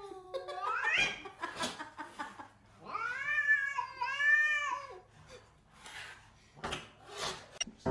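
A cat meowing and yowling: a rising meow near the start, then a long, wavering drawn-out call of about two seconds in the middle, followed by a couple of short, rougher sounds near the end.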